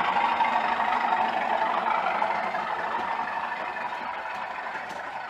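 A model train running on the layout: the engine sound from its DCC sound decoder together with the wheels clattering on the track, fading steadily as the train moves away.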